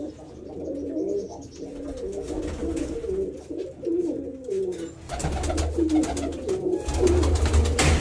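Domestic pigeons cooing repeatedly in the loft, their low wavering calls overlapping. From about five seconds in, a low rumble with crackling joins them.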